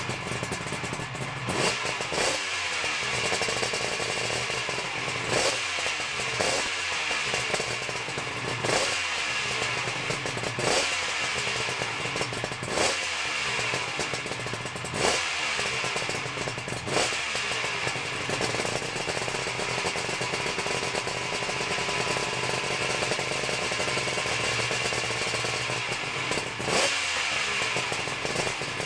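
Suzuki GT380 air-cooled two-stroke triple with Jollymoto exhausts, being revved with sharp throttle blips about every two seconds, the revs falling back after each. After a stretch of steadier running, there is one more blip near the end.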